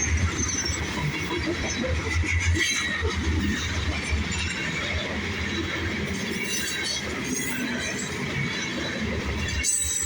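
Freight train's loaded grain cars rolling past on a curve: a steady rumble of wheels on rail, with brief high-pitched wheel squeal near the start and again near the end.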